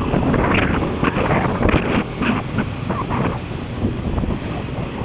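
Wind buffeting a phone's microphone, a heavy, uneven rumble.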